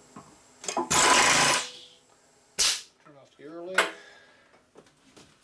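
A milling machine's power drawbar rattles for under a second, about a second in, drawing a boring head up into the spindle. A sharp metallic click follows, and another about a second later.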